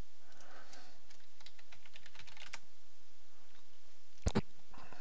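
Typing on a computer keyboard: a quick run of keystrokes for about two and a half seconds, then two louder, sharp clicks in quick succession a little after four seconds in.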